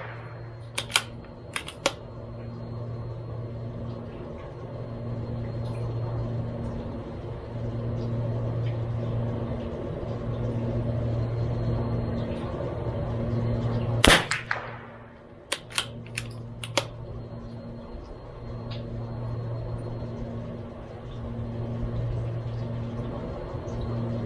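A CZ 457 MTR bolt-action .22LR rifle fires a single shot of Eley Match about fourteen seconds in. Small clicks follow it and also come near the start, likely the bolt being worked. A low hum swells and fades every couple of seconds underneath.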